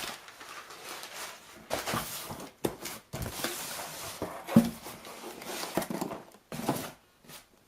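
Cardboard and plastic packaging being handled and pulled open by hand: irregular rustling and scraping with scattered clicks, and a sharp knock about halfway through.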